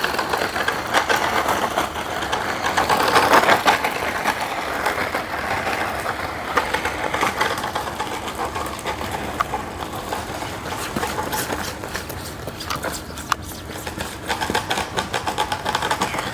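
DEERC 9308E RC truck's electric motor and gears whirring as it is driven in short runs at its minimum speed setting, swelling and fading, with many small clicks and rattles from the chassis and wheels.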